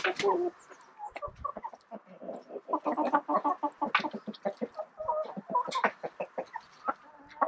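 A flock of chickens clucking: many short, overlapping calls, thinning out for a moment about a second in, then busy again.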